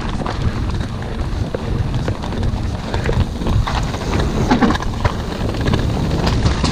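Mountain bike descending a dirt forest trail at speed: wind buffeting the microphone over the rumble of tyres on dirt, with scattered clicks and knocks as the bike rattles over the rough ground.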